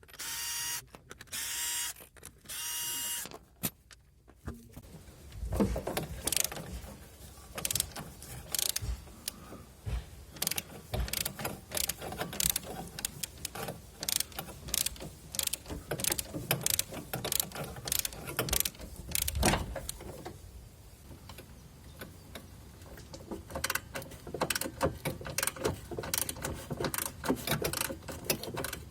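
A ratchet wrench clicking in quick, uneven runs as a bolt is turned. It is preceded by a short steady whine in the first few seconds.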